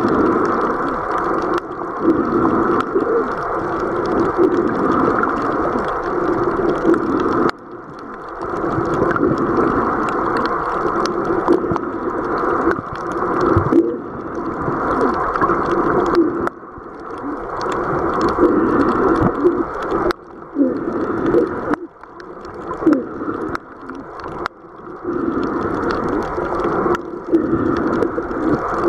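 Muffled rushing and sloshing of seawater picked up by a camera held just under the surface, with short wavering gurgles. It drops away suddenly several times.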